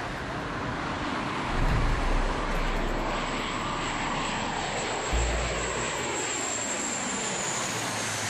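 Aircraft engine noise, its pitch gliding downward as the aircraft goes by, with a high whine sliding down through the second half. Two short low rumbles come through, about two seconds in and again past five seconds.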